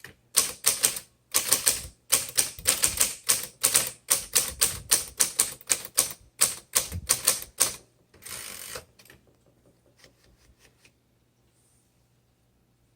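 Manual typewriter being typed on: a fast, uneven run of key strikes for about eight seconds, then a longer, smoother sound, a few faint clicks, and quiet.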